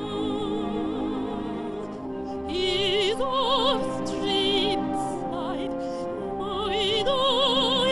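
A woman singing into a microphone in an operatic style, holding long notes with wide vibrato, the strongest phrases about three and seven seconds in, over instrumental accompaniment.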